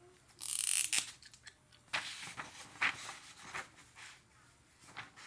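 Paper being handled and drawn on with a marker: a loud rustle of paper about half a second in, then a series of short scratchy strokes.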